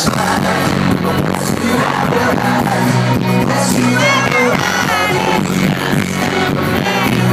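Indie rock band playing live through a large stage PA, drums, bass and electric guitars kicking in together sharply at the start and carrying on at full volume.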